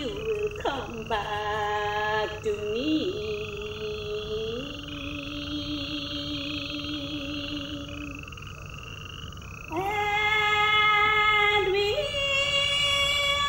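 A woman singing a slow Naga folk-tune lament in long held notes with slow bends in pitch. Behind it, short rising chirps repeat about every 0.7 seconds and stop about nine seconds in. The singing gets louder and fuller at about ten seconds.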